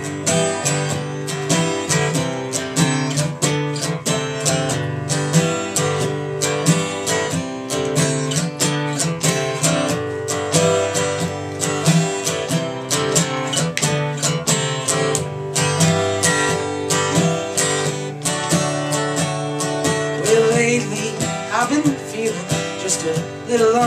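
Solo acoustic guitar strummed in a steady rhythm.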